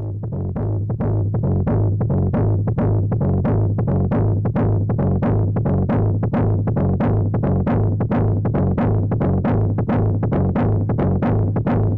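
Electronic music with a steady, fast beat and strong bass, fading in over the first second.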